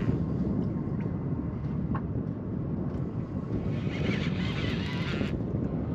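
Steady low wind rumble on the microphone aboard a small boat. About two-thirds of the way through, a higher hiss rises for a second and a half and cuts off suddenly.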